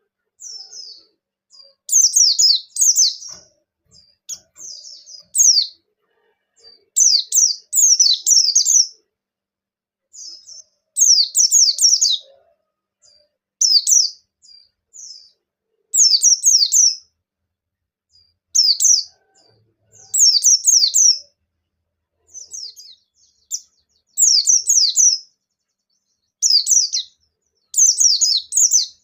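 Pleci (white-eye, of the kind bird keepers call bustomi) singing in quick, high-pitched twittering phrases about a second long, repeated every second or two. It is a lure song meant to set other white-eyes singing.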